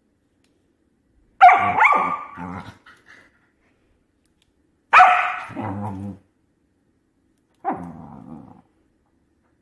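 Miniature pinscher barking and growling three times, each a sharp bark that trails into a low growl, aimed at a hair clip held to her face.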